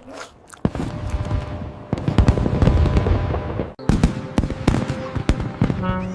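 Rapid crackling and popping, densest about two seconds in, then a string of separate sharp cracks, with music underneath.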